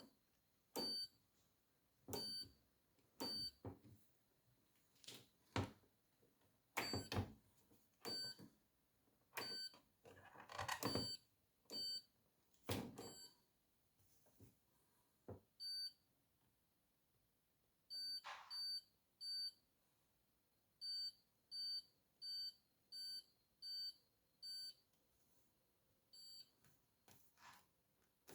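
Short electronic beeps from a Hoover washing machine's control panel as its buttons are pressed and its programme dial is turned. The beeps come singly and in quick runs, mixed with plastic clicks and light knocks.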